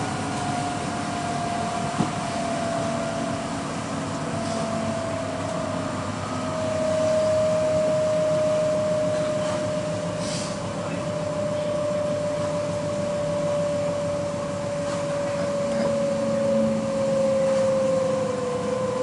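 Electric Copenhagen S-train heard from inside the carriage: a steady rumble of wheels on rail under a single motor whine that slowly falls in pitch as the train slows toward a station. One sharp click about two seconds in.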